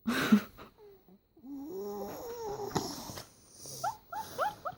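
A young boy snoring loudly in his sleep: a sharp noisy breath at the start, then a long rasping snore with a wavering pitch, then several short rising squeaks near the end.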